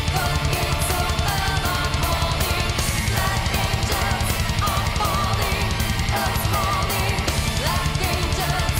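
Heavy metal band playing live: distorted guitars with sustained, wavering lead notes over fast, steady drumming.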